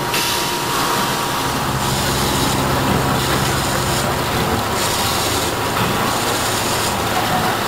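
Kent KGS-63WM1 12 x 24 inch surface grinder wet grinding under flood coolant: a steady hiss of the wheel cutting and the coolant spraying, swelling and dropping about once a second.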